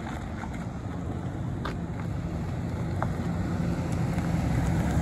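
1995 Ford F-250 pickup's engine running as the truck drives toward the listener, growing steadily louder as it comes closer.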